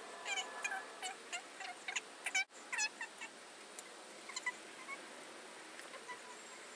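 Sticky epoxy putty squelching and squeaking as it is kneaded and pressed between damp fingers, in an irregular run of short wet squeaks, thickest over the first three seconds and then sparser.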